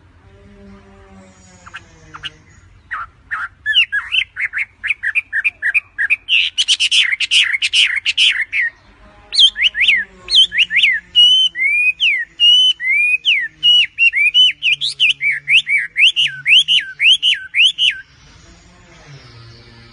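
A bird singing a long run of quick, sharp chirps, several a second, starting about three seconds in and stopping shortly before the end. A faint low hum runs underneath.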